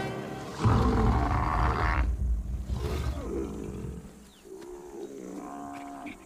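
Lions growling and snarling at a buffalo kill. A loud, deep roar-like growl comes about half a second in, followed by quieter growls and short snarls.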